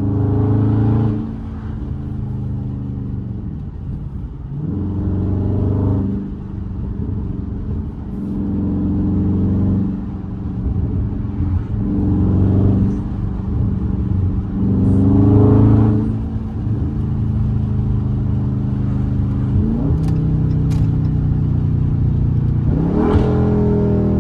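Dodge Charger Scat Pack's 392 (6.4-litre) HEMI V8, breathing through a JLT cold-air intake, accelerating hard again and again while driving. The revs climb and drop back several times as it pulls through the gears and the throttle comes on and off.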